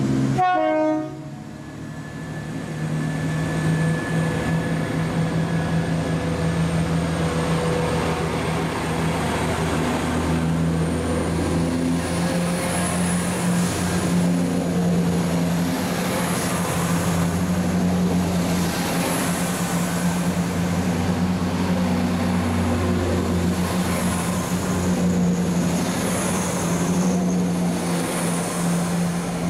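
Diesel train running through a station: a steady engine drone over rail noise, with a thin high whine that rises slightly about ten seconds in.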